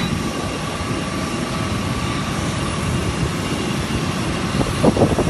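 Steady rumble and whine of jet airliner engines running, with a few short low thumps near the end.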